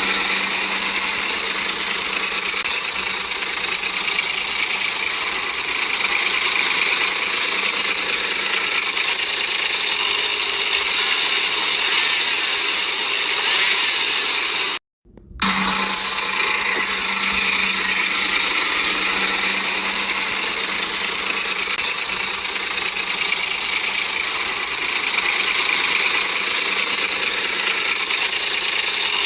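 Ford Explorer's 4.0 V6 running with a constant rattling, tapping noise from the timing chain, which the owner puts down to a loose chain tensioner and guide. The sound cuts out suddenly for a moment about halfway through, then carries on as before.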